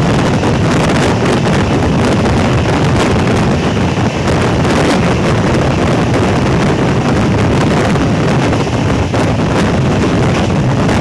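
Loud, steady wind buffeting the microphone over the running noise of a fast-moving express train, heard from an open coach door as the train passes through a station at speed.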